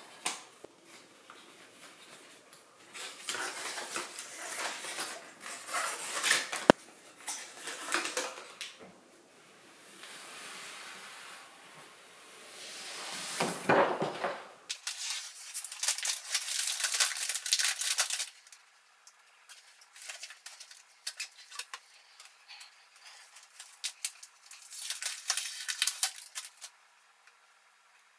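Paper and plastic iMac packaging rustling and crinkling as it is handled and the protective wrap comes off the screen, in irregular bursts with short pauses and one sharp click about a quarter of the way in.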